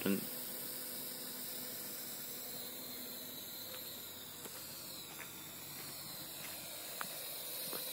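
Faint, steady high-pitched whine of a Parrot AR.Drone quadcopter's rotors as it hovers level, under a steady hiss, with a few faint ticks.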